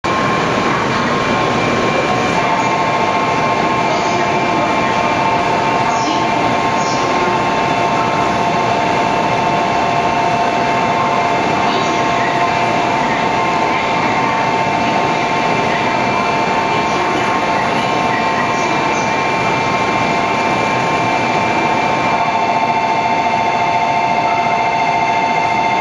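A JR East 200 series Shinkansen trainset stands at the platform with a steady, loud hum of running equipment. About two seconds in, a cluster of steady high tones joins it, holds level, then cuts off.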